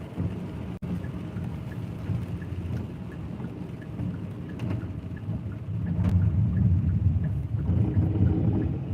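Car cabin rumble from road and tyre noise while driving, picked up by a phone inside the car; the low rumble grows louder about six seconds in.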